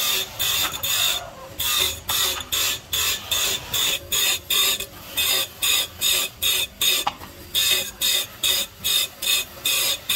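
Circular saw blade teeth being sharpened one by one on a motor-driven grinding wheel: a quick, even run of short grinds, about three a second, each as a tooth is pressed to the wheel.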